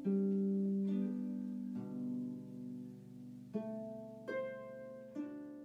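Solo harp music: plucked notes and chords, each ringing on and fading away, with a new note or chord struck about every second.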